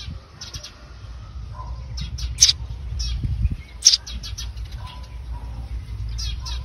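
Small birds chirping in short, rapid calls, two sharp ones standing out about two and a half and four seconds in, over a steady low rumble.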